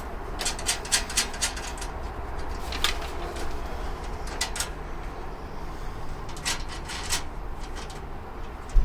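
Irregular light clicks and clinks of small metal brackets and hardware being handled, a quick cluster near the start and single ones spread through the rest.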